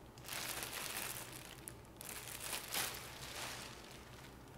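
Packaging wrap crinkling and rustling as a new racing seat is unwrapped by hand, in two long bouts, the second fading near the end.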